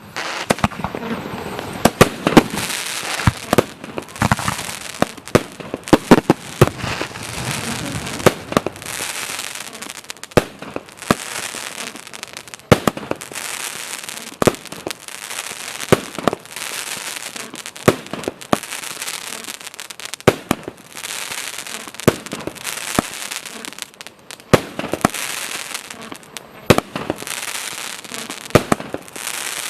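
A 19-shot, 30 mm consumer fireworks battery (Gaoo Fight / Prestige Escort) firing: loud bangs about once a second, each followed by a long spread of crackling from the crackling palm bursts.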